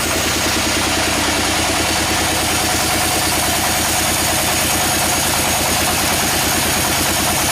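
Sawmill machine's engine running steadily with a fast, even pulse and a dense mechanical hiss.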